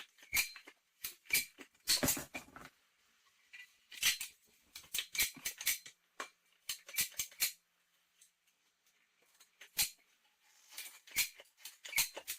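Irregular small clicks, taps and rattles of hard plastic parts and tools being handled, coming in scattered clusters with short silent gaps.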